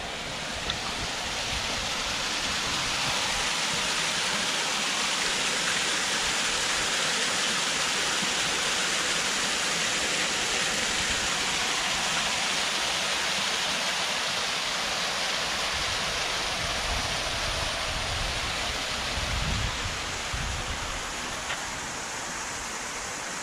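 Steady rushing water, an even hiss that swells over the first few seconds and eases slightly near the end.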